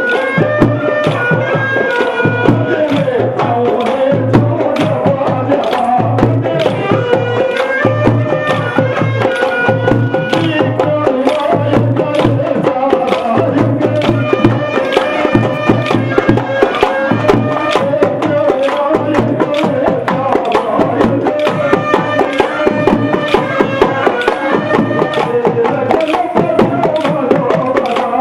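Kolatam dance music: traditional folk music with a wavering held melody and a steady drum beat. It is dotted with frequent sharp clacks, most likely the dancers' wooden kolatam sticks striking together.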